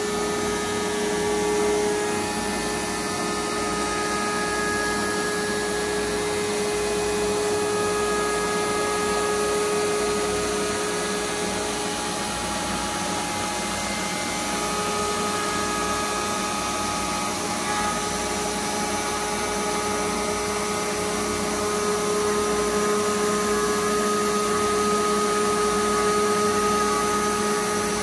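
Five-axis CNC router spindle milling white foam: a steady machine run with a held whine over the even rush of the cut, swelling slightly now and then as the head moves along the part.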